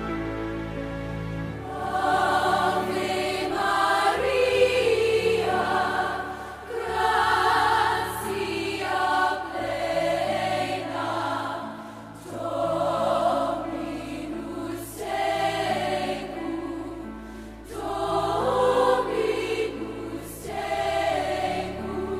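Choir singing over sustained low accompaniment notes, in phrases of two to three seconds with short breaks between them; the voices come in about a second and a half in.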